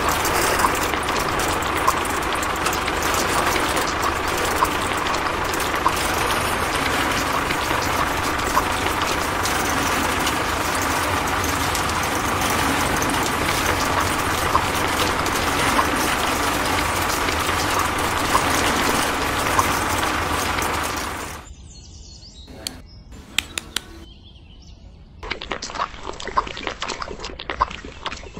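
A small electric motor of a toy concrete mixer truck running with a steady whirring noise, cutting off about three-quarters of the way through. Near the end, a steel trowel scraping and tapping through wet cement.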